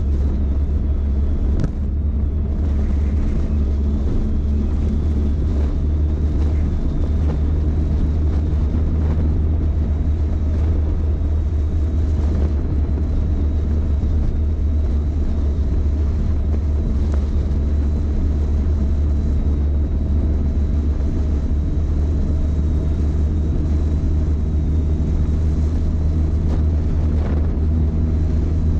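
Sport-touring motorcycle cruising at a steady pace as heard from onboard, with a deep, steady engine drone and road and air noise over it.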